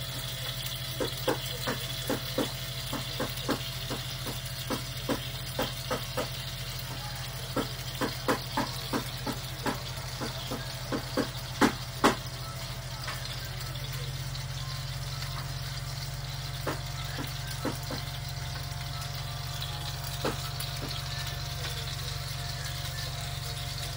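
Light clicks and taps as marinated chicken and pineapple are threaded onto skewers over a plastic container, over a steady low hum. The clicks come thick and fast for about the first twelve seconds, then only now and then.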